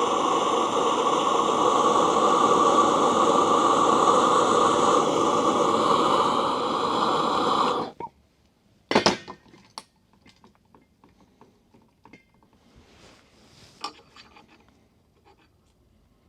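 A torch burning with a steady rushing hiss, heating metal on the truck, which cuts off suddenly about eight seconds in. A sharp metallic clank follows, then light clicks and clatter of tools being handled.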